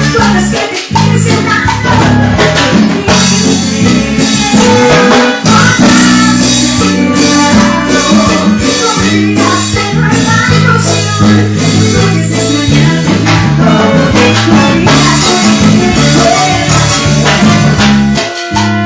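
A live band playing Latin dance music, with a steady beat of drums and percussion over a heavy bass line.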